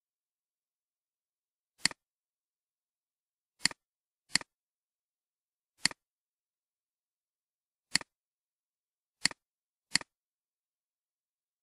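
Seven sharp computer mouse clicks at uneven intervals, each a press followed by a fainter release tick, with dead silence between them.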